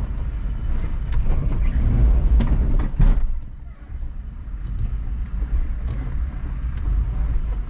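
Land Rover LR3 crawling slowly over trail rocks, its engine a low, steady rumble with the body and suspension knocking on the rocks. The hardest knock, about three seconds in, is a bump at the back of the truck.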